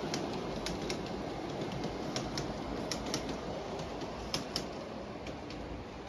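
LGB G-scale model train rolling along brass track with a steady rumble, its wheels clicking over the rail joints, the clicks mostly in quick pairs as each two-axle truck crosses a joint. The sound fades a little near the end.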